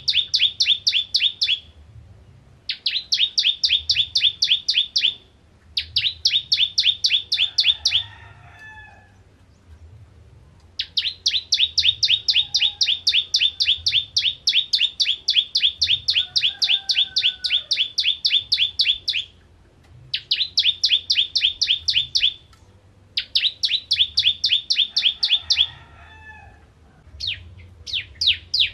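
Bar-winged prinia (ciblek kristal) singing its rapid-fire song: sharp, high notes repeated evenly at about six a second, in bouts of two to eight seconds with short pauses between them. The longest bout, in the middle, runs about eight seconds.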